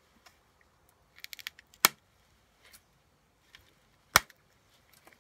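Pressure flaking a stone point of Kay County chert: a few light clicks as the flaker tip bears on the edge, then two sharp snaps about two seconds apart as flakes pop off the piece.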